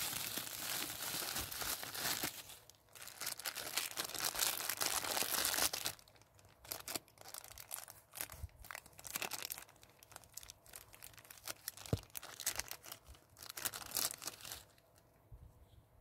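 Thin clear plastic wrapping crinkling and tearing as it is pulled off by hand, dense and continuous for about six seconds. Then scattered snips and rustles as scissors cut open a small plastic bag.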